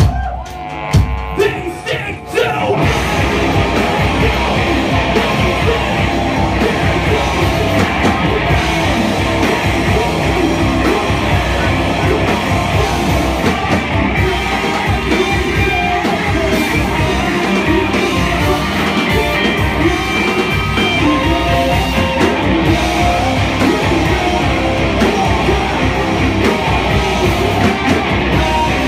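Live rock band with electric guitars and drums playing loud, with a singer's vocals over it; after a sparse, stop-start opening the full band comes in about two and a half seconds in and plays on without a break.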